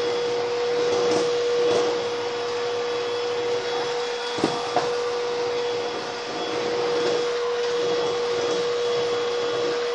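Hoover Rhapsody RA22HCG cordless stick vacuum running steadily with a constant motor whine, its powered brush head picking up spilled flour from laminate floor panels. Two small clicks come about four and a half seconds in.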